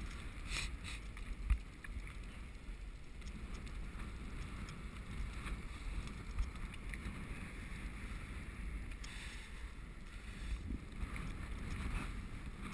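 Bicycle rolling along a paved path: steady low wind buffeting on the microphone and tyre rumble, with a few light knocks or rattles from the bike.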